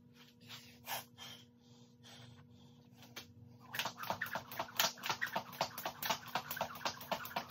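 A few scattered knocks and rustles, then, from about three and a half seconds in, skipping with a jump rope: the rope and feet strike the concrete floor in a quick, steady rhythm. A faint steady electrical hum sits underneath.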